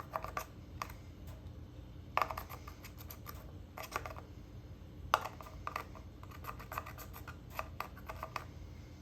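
Glittery slime being pressed and poked by hand, giving irregular runs of small sticky clicks and air-bubble pops, with louder bunches about two, four and five seconds in.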